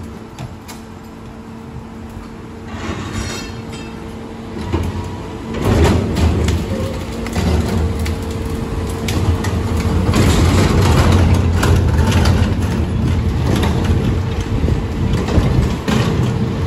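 Mack garbage truck's diesel engine rising in revs about five seconds in as the Leach rear loader's hydraulic packer works. Over it come clattering and cracking as demolition debris is crushed in the hopper and steel dumpsters are rolled up.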